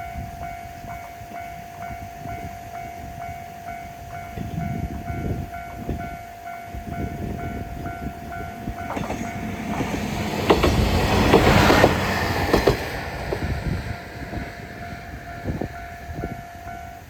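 Railway level-crossing warning bell ringing in a steady repeating pattern while a train passes through the crossing. The train comes in about 9 seconds in, its wheels clattering over the rail joints, loudest around 11 to 12 seconds in. The bell can be heard ringing on after the train has gone by.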